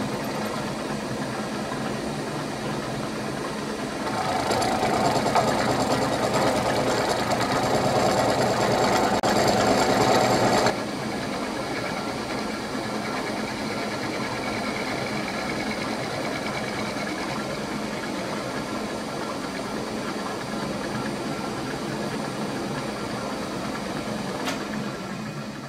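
A workshop machine tool running steadily while cutting the welds off a welded stack of clamp plates. The cutting gets louder about four seconds in for some six seconds, then drops back abruptly to a steady run.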